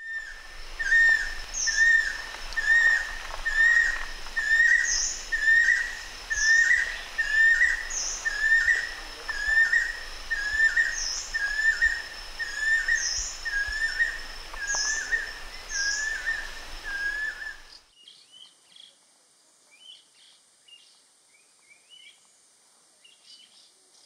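Banded kingfisher calling: a long, even series of short whistled notes, nearly two a second, that stops abruptly about eighteen seconds in.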